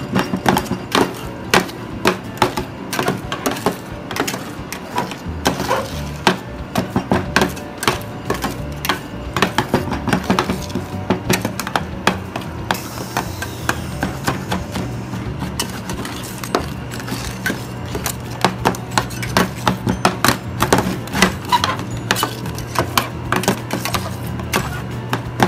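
Metal spatulas rapidly tapping and chopping on a frozen steel plate, breaking fruit into yogurt for stir-fried yogurt, in quick irregular knocks. Background music plays underneath.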